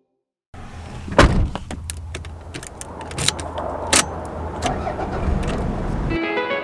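Car keys jangling and clicking in the ignition as the key is put in and turned, with a loud thump about a second in, over a steady low rumble. Music comes in near the end.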